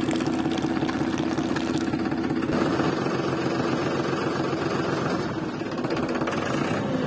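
Tractor-style engine idling steadily, a continuous even hum with no revving.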